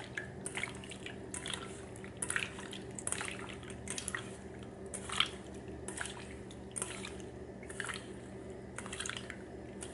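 Hands squishing raw shrimp through a liquid marinade in a stainless steel bowl: faint wet squelches and little splashes every half second to a second, over a low steady hum.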